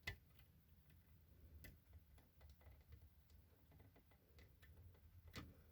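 Faint, scattered clicks and taps of hard plastic being handled as a battery is worked into a smoke detector's battery holder, with a sharper click just after the start and another near the end.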